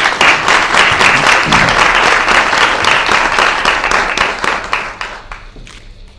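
Applause, many hands clapping together, loud at first and dying away about five seconds in.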